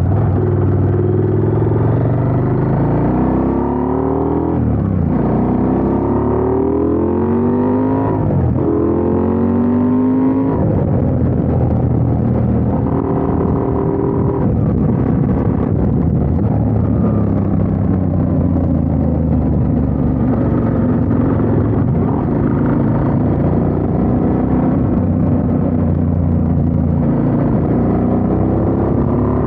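Motorcycle engine accelerating through the gears: its pitch climbs and drops back at each upshift, three times in the first ten seconds, then holds fairly steady while cruising.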